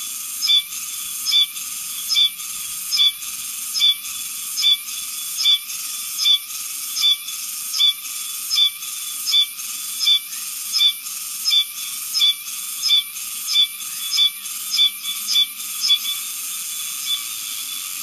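A Meimuna cicada singing: a continuous high buzz broken by a louder rasping accent that repeats evenly, a little more than once a second.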